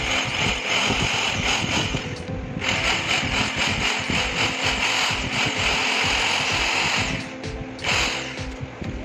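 Electric drill boring out the rivets of a plastic miniature circuit breaker case, running steadily and pausing briefly about two seconds in and again near seven seconds before starting again. Background music with a beat plays under it.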